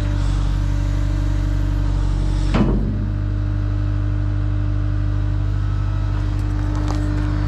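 Small diesel loader's engine running steadily, with one brief knock about two and a half seconds in.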